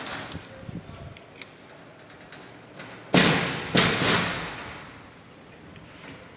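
Two loud thumps about two-thirds of a second apart, each trailing off over about a second.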